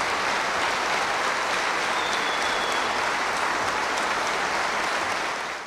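A large audience applauding together in a standing ovation. The applause is dense and even, and fades out near the end.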